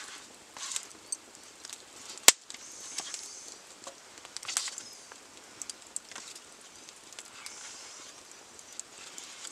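Knife slicing raw pork liver on a plate, the blade scraping and tapping against the plate in scattered short clicks, over a crackling wood fire. One sharp crack stands out about two seconds in.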